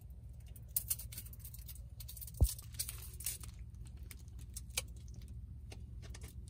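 Quiet low rumble inside a car cabin, with scattered light clicks and rustles of small things being handled, and one sharper knock about two and a half seconds in.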